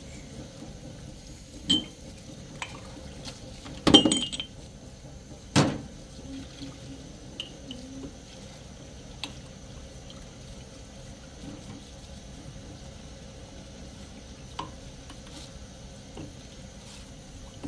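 Tap water running at a sink while drinking glasses are rinsed by hand, with sharp glass clinks now and then; the loudest, with a short ring, comes about four seconds in.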